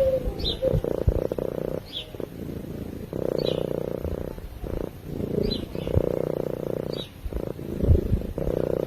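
Domestic cat purring close to the microphone, the purr going in stretches of a second or so with short breaks at each breath. Faint short high chirps recur about every second and a half, with a few low bumps.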